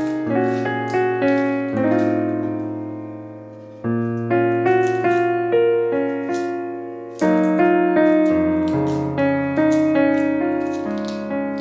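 Background piano music: a slow, gentle piece of struck chords with a melody on top, each note left to ring and fade.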